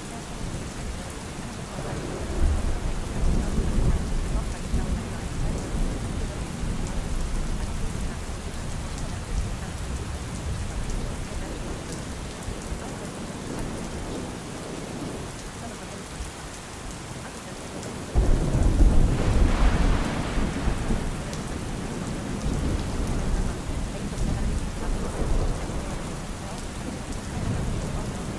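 Steady rain with rolling thunder. A low rumble comes a couple of seconds in, and a louder peal starts suddenly about two-thirds of the way through and rolls on for several seconds.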